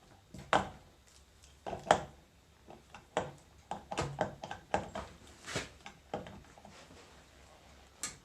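Irregular metallic clicks and knocks, about a dozen, from tools and steel parts being handled while a hydraulic directional control valve is taken apart.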